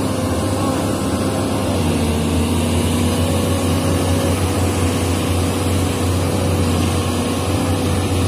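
Sany SY215C hydraulic excavator's diesel engine running steadily under working load as the arm and bucket move through soil. It is a constant low drone with a faint tone above it that shifts slightly in pitch about two seconds in.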